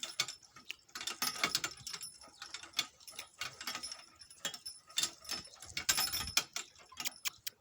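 Donkey cart on the move: an irregular, continuous run of metallic jangles and clicks from the cart and its harness.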